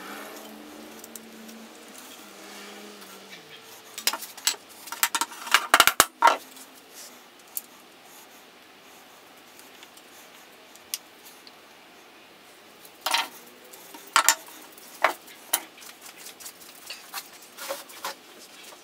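Metal parts of a Disston back saw clinking and clicking as the wooden handle is fitted onto the steel blade. There is a quick cluster of sharp clinks about four to six seconds in, another about thirteen to fifteen seconds in, and lighter scattered clicks after that.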